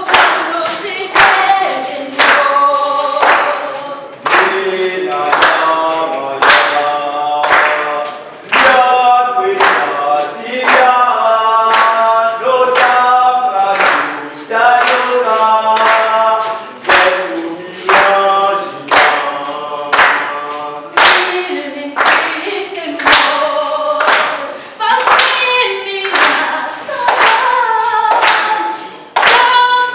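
A group of young mixed voices singing a popular song in Russian without instruments, with steady hand claps on the beat about once a second.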